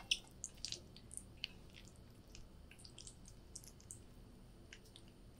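Faint, scattered sticky clicks and squishes of sauce-coated fried potato pieces being shifted on a plate with a silicone spatula.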